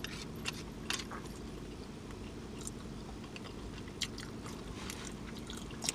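Close-up mouth sounds of someone chewing food: scattered small wet clicks and smacks over a steady low hum.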